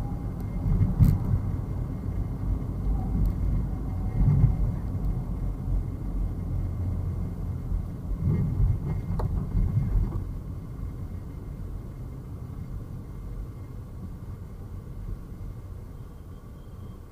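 Rumble of city street traffic heard from a moving car, louder for the first ten seconds and then easing off, with a couple of brief knocks.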